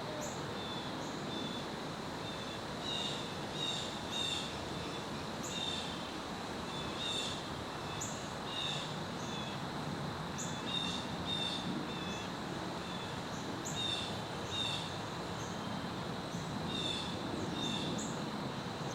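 Small birds chirping in short, repeated calls over a steady rush of wind in the trees, with a faint steady high insect-like tone underneath.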